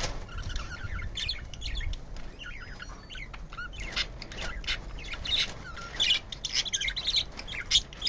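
Several budgerigars chirping and chattering, many quick overlapping chirps that get louder and busier about six seconds in.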